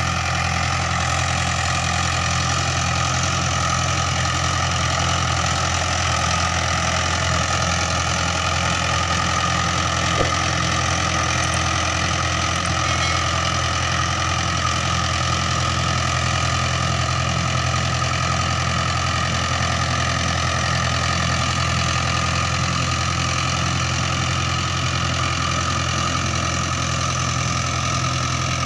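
Mahindra 575 DI tractor's four-cylinder diesel engine running steadily while pulling a rotavator that is tilling the soil.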